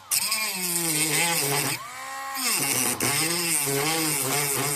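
Dremel rotary tool with a metal-cutting wheel grinding into a hard plastic gear knob. The motor's pitch sags and recovers repeatedly as the wheel bites, and eases off briefly about two seconds in.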